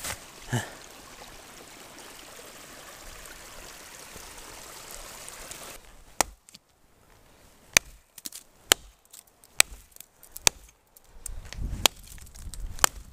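Short axe chopping into a fallen branch lying on snow: seven sharp strikes, roughly one a second, in the second half. Before that, a steady trickle of running creek water.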